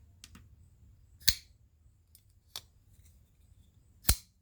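Sharp clicks from a folding knife and a small digital scale being handled, as the knife is set up to be weighed. Two faint clicks come near the start, a loud one about a second in, a softer one in the middle and another loud one near the end.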